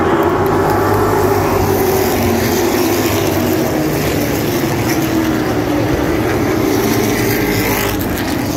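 A pack of Sportsman-class short-track race cars racing past, their engines blending into one loud, steady drone that rises and falls a little in pitch as the cars go through the turn.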